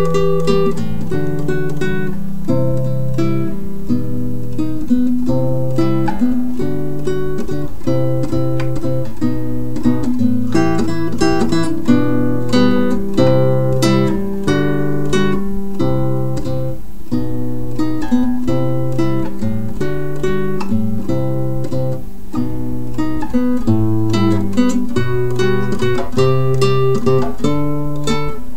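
Acoustic guitar music: a steady run of plucked notes over a repeating bass line.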